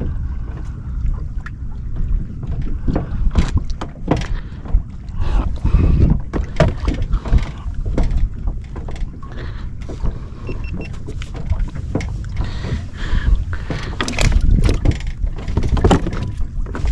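Irregular knocks and clatter of gear being handled on a fishing kayak, over a steady deep rumble.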